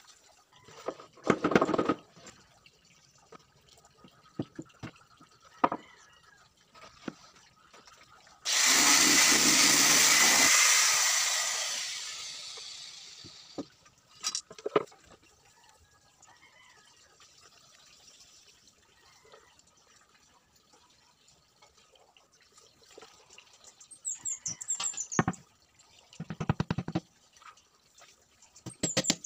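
A circular saw starts suddenly, runs for about two seconds and then winds down over about three seconds, most likely a short cut through a wooden strip. Scattered knocks and scraping from handling wood come before and after.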